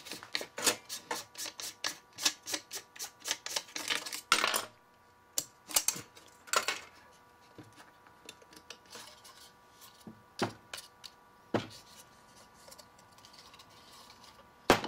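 Projection lens assembly of a DLP rear-projection TV being twisted and unscrewed by hand, giving quick clicking and rattling with a couple of short scrapes, while loose parts are set down on the workbench. The clicks come fast for the first few seconds, then only now and then.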